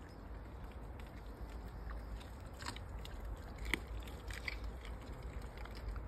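German shepherd chewing and biting raw chicken, wet crunches and clicks at irregular intervals, with one sharper snap a little past the middle.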